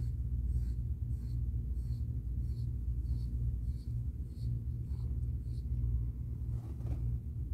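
Persian cat in labour purring: a low, steady rumble with a soft breath sound about every half-second as she breathes quickly and evenly.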